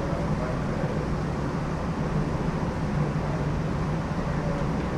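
New Orleans Canal Street streetcar running along the line, heard from on board: a steady hum and rumble of the car's motors and wheels on the rails.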